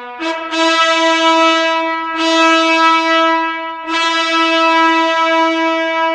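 Brass fanfare theme music holding one long note. The note is sounded three times, each time swelling and then fading.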